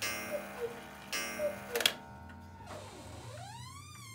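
Antique Black Forest cuckoo clock calling the hour: two falling two-note cuckoo calls from its bellows pipes, the second ending in a loud click as the mechanism stops. The clock then ticks on faintly, and a faint tone rises and falls in pitch near the end.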